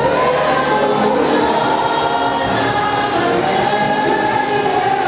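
A choir singing a gospel hymn, many voices holding and moving through sustained notes together.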